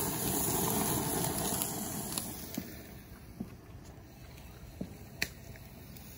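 Baby octopus sizzling on a barbecue grill, a steady hiss that fades out about halfway through, leaving only a few soft clicks.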